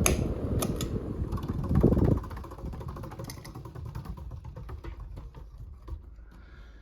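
1989 Casablanca Lady Delta ceiling fan being switched off from high speed and coasting down. A few sharp clicks come in the first second, then a loud rush of air and motor noise drops off sharply about two seconds in. It fades into a fainter whir with rapid repeating ticks as the blades slow.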